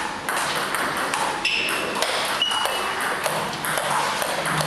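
Table tennis rally: the celluloid ball clicking sharply off the rubber paddles and the table top in quick exchanges, over the murmur of a busy hall.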